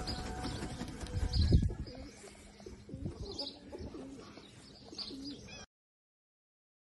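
Muscovy duck giving a series of short, soft, low cooing calls. A loud low burst of noise comes about a second and a half in, and the sound cuts off suddenly near the end.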